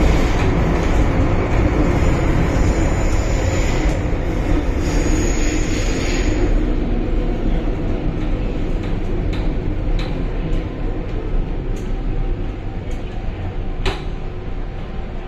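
Interior running noise of an MTR Island Line Metro-Cammell M-Train in the tunnel: a loud, steady rumble of wheels on rail that grows quieter over the second half, with a few sharp clicks from about nine seconds in.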